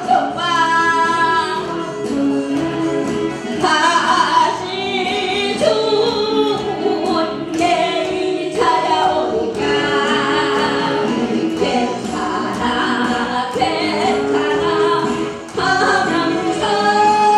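A woman singing a Korean song into a handheld microphone through a PA, over a recorded backing track, with long held notes.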